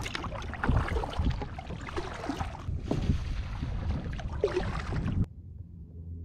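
Wind buffeting the microphone over the splash and lap of water around a kayak on open water. The sound cuts off abruptly about five seconds in, leaving a quiet low steady hum.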